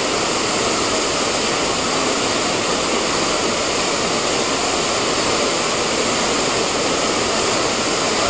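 Rushing river water: a steady, unbroken rush of moving water.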